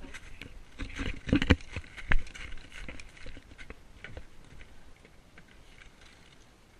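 Quick, irregular footsteps and knocks as a person hurries over packed snow and onto a wooden deck, the loudest thuds in the first two seconds and thinning out after about three seconds.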